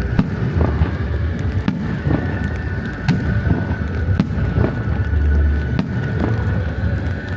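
Aerial fireworks bursting, a string of sharp bangs roughly once a second over a low rumble, with music playing along to the show.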